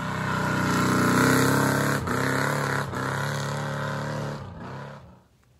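A motor vehicle engine running steadily, off-camera, loudest about a second in, then dropping in pitch and fading out near the end.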